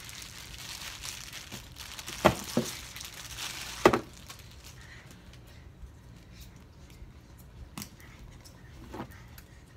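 Clear plastic wrapping crinkling as a diaper-bag strap is pulled out, with two sharp clinks of its metal clip hardware about two and four seconds in. Fainter clicks follow as the strap's clip is fastened onto the bag.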